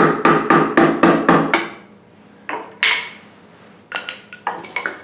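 Hammer blows driving a pry tool under the intake manifold of a Chevy 350 small-block, a quick run of about four strikes a second. The changing tone signals the intake breaking loose. The strikes stop about a second and a half in, and a few lighter knocks and clatter follow.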